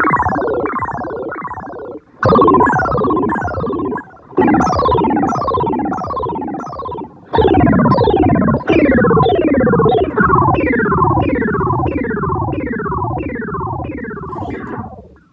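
Boss SY-200 synthesizer pedal making spacey, UFO-like tones: repeated falling pitch sweeps, about two a second, in phrases that start loud and fade, each phrase retriggered with a fresh loud onset.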